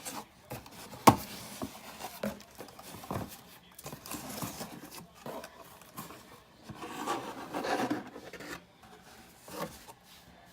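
Boxed vinyl figure's cardboard and plastic packaging being handled: scattered taps and knocks, the sharpest about a second in, with rubbing and a longer rustle about seven seconds in.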